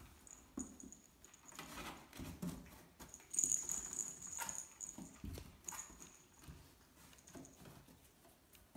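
Kittens scrambling in and on a cardboard box: irregular soft thumps, scratches and scrapes against the cardboard.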